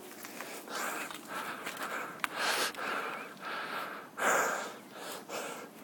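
A mountain-bike rider breathing hard in repeated short puffs, with a louder breath a little past four seconds in. A single sharp click sounds about two seconds in.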